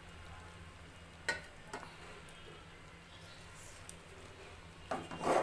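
Taro stolons and jackfruit seeds sizzling faintly in a metal pan on a low flame, over a low steady hum. A couple of light taps come in the first two seconds, and a brief louder noise near the end.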